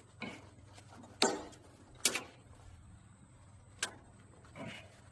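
Socket wrench and bar working the bolts of a tractor's PTO seal housing: a few sharp metal clinks and knocks, unevenly spaced, three of them loud.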